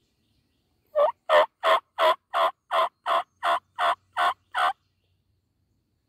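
Turkey yelping: a run of eleven evenly spaced calls, about three a second, loud and clear, stopping just under five seconds in.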